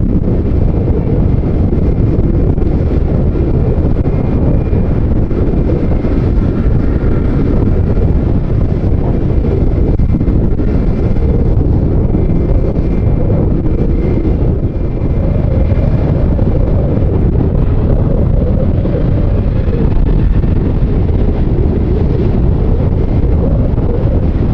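Heavy wind buffeting the microphone, steady throughout, with the faint high whine of jet airliner engines in the first half.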